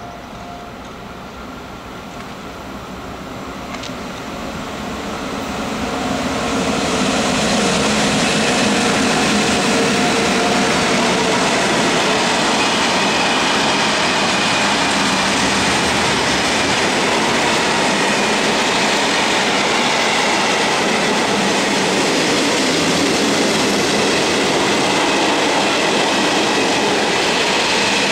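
A long freight train hauled by ÖBB Class 1144 electric locomotives approaches and grows steadily louder over the first seven seconds or so. Its freight wagons then roll past, loud and steady, wheels running on the rails.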